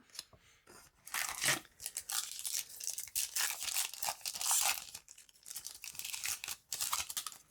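Foil wrapper of a Yu-Gi-Oh booster pack being torn open and crinkled, a run of rustling, crackling tears.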